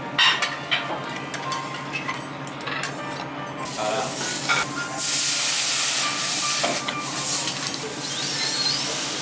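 Food sizzling on a teppanyaki iron griddle, with sharp clicks of metal spatulas against the plate in the first few seconds. About five seconds in the sizzle swells into a loud, steady hiss.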